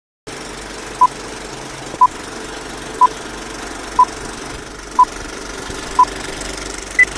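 Old film-countdown leader sound effect: a steady film-projector rattle and crackle with a short beep every second, six in all, then a single higher-pitched beep near the end.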